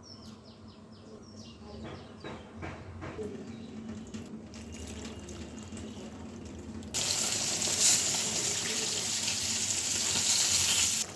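A few light knocks and clinks, then about seven seconds in a kitchen tap is turned on and water runs loudly with a steady hiss for about four seconds before stopping abruptly.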